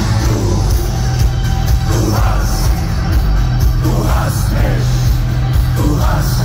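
Industrial metal band playing live through a stadium PA, loud, with heavy bass and vocals recurring about every two seconds, picked up on a phone microphone from within the crowd.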